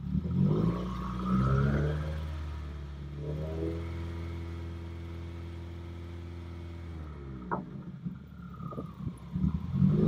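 2015 Subaru WRX's turbocharged 2.0-litre flat-four revved through a Nameless axle-back exhaust: a quick rev right away and a second one about a second later, then the note settles to a steady drone for a few seconds before dropping away. There is one sharp click about seven and a half seconds in, and the revs start climbing again near the end.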